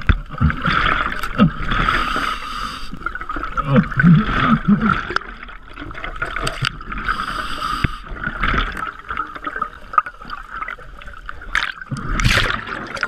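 A scuba diver breathing underwater through a regulator: hissing breaths and bubbling exhalations that come in surges every few seconds. A few short muffled vocal sounds come through the regulator about four to five seconds in.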